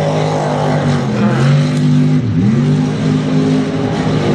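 Mud truck engine running hard at high revs, driving through a mud pit; about two seconds in the revs drop sharply and climb straight back up.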